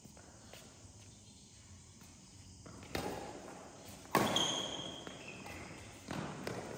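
Badminton rackets striking a shuttlecock in a rally, a sharp hit about every second from about three seconds in, the loudest about four seconds in, each ringing on in a large hall. A few short high squeaks, typical of shoes on the court floor, follow the loudest hit.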